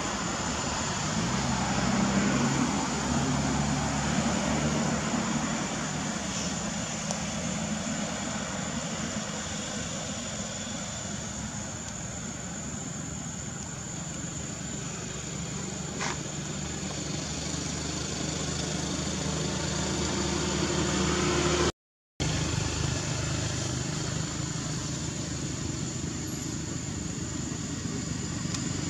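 Steady outdoor background noise with a low, even engine hum, like a motor vehicle running. The sound cuts out for an instant a little past the middle.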